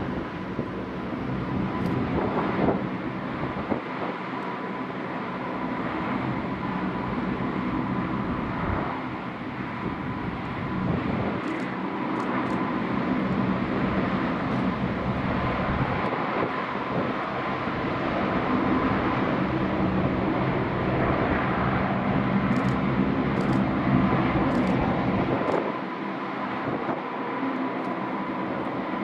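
Four Allison T56 turboprop engines of a Lockheed P-3-family patrol aircraft (P-3C Orion or CP-140 Aurora) running steadily, with a steady high whine over the low drone. The sound swells a little in the middle and eases shortly before the end.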